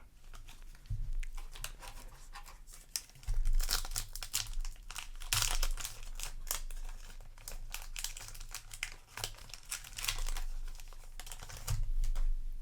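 Foil booster-pack wrapper crinkling as it is handled and torn open, a dense run of crackles that is busiest about three to six seconds in and again near the end.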